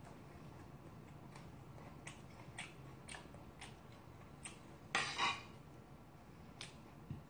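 Close-miked chewing, with soft wet mouth clicks about twice a second. About five seconds in comes a short, louder clatter as metal serving tongs are picked up from the side-dish tray.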